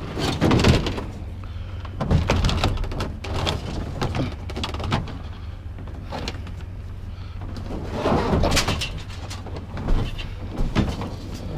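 A metal appliance being pushed and slid into a pickup truck bed: a run of scrapes and knocks, metal dragging and bumping on the bed and rails.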